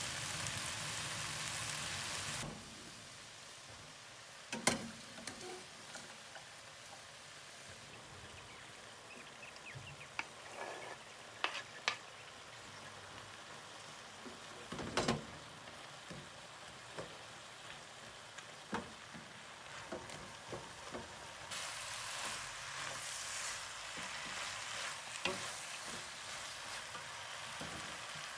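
Diced vegetables and penne sizzling in a non-stick frying pan, with scattered knocks of a wooden spoon stirring against the pan. The sizzle is loudest for the first couple of seconds, drops, and picks up again about three quarters of the way through.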